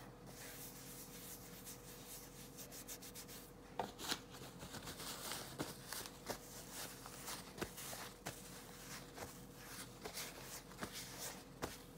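Faint rubbing and scrubbing of a wipe worked over the skin of a hand to take off eyeshadow swatches, with scattered small clicks.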